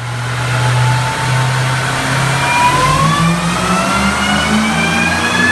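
Supercharged V8 of a 2010 Cadillac CTS-V pulling under load on a chassis dyno, revs climbing, with a high supercharger whine rising steadily in pitch over the engine's low exhaust note.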